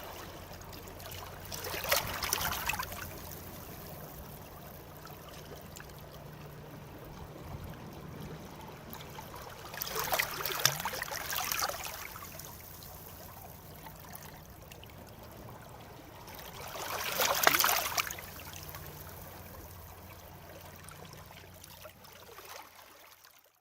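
Sea waves: a steady wash of surf with three louder waves breaking, roughly seven seconds apart, then fading out at the very end.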